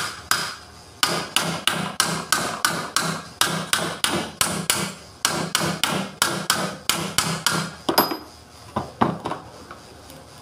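Hammer blows on a forklift alternator's metal housing: one sharp blow, then a steady run of blows at about three a second for some seven seconds, each with a short ring, ending with a few last scattered blows.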